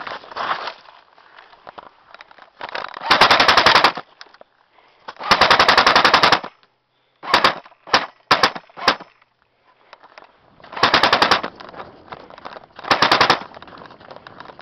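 Airsoft gun firing rapid automatic bursts: two longer bursts of about a second each, then a quick string of four short bursts, then two more bursts near the end.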